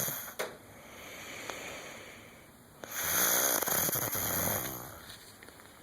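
A sleeping person snoring. The tail of one snore ends just after the start, a softer breath follows, and another loud snore comes about three seconds in, lasting nearly two seconds.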